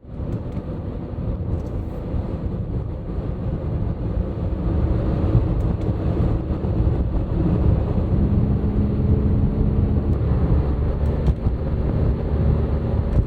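Car driving, with a steady low rumble of engine and road noise heard inside the cabin.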